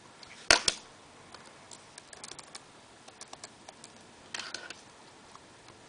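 Keystrokes on a computer keyboard: one sharp click about half a second in, then scattered light key taps and a quick cluster of them about four seconds in.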